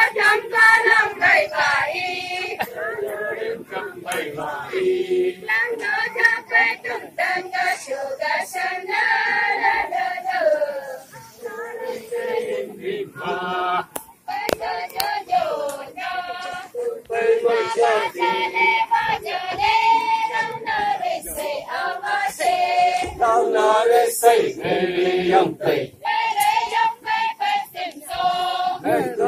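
A mixed group of Tangsa Naga men, women and children singing a traditional dance chant together in a slow, continuous line.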